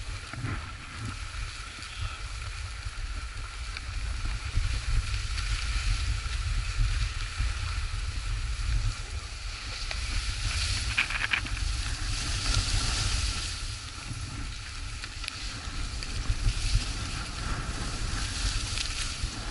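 Wind rumbling over a body-worn camera's microphone on a downhill ski run, with the hiss and scrape of skis on packed snow swelling in surges with the turns.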